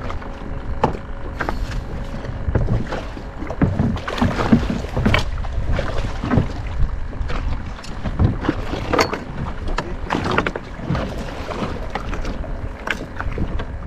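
Water slapping and splashing against a small boat's hull, with irregular knocks and bumps from the boat and its gear. A low rumble of wind buffets the microphone throughout.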